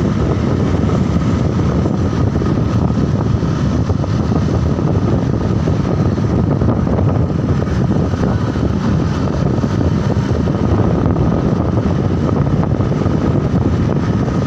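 Steady drone of a moving vehicle with wind buffeting the microphone, unbroken and with no horn sounding.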